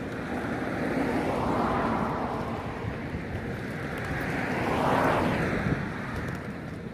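Two road vehicles passing one after the other, each a rush of noise that swells and fades, the second about three seconds after the first.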